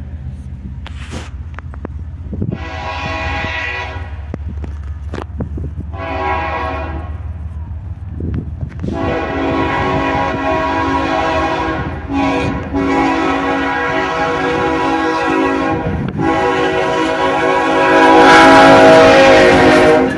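Air horn of a GE ES44AC diesel locomotive sounding a crossing warning: two blasts of about two seconds each, then a long, almost unbroken blast that grows louder as the locomotive comes up close, over a low rumble.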